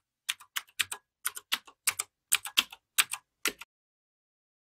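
Computer keyboard typing: a quick run of key clicks, about five a second, stopping a little past halfway.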